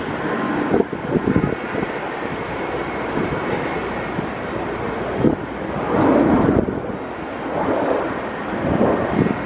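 Twin Pratt & Whitney PW4158 turbofans of an Airbus A300-600 freighter running at taxi power as it turns onto the runway: a steady distant jet rumble and hiss. Gusts of wind buffet the microphone irregularly throughout.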